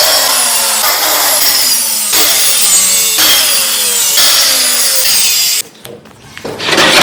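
Power saw cutting through wood, its pitch sagging and recovering again and again as it works through the cut, then stopping about five and a half seconds in. A run of knocks begins just before the end.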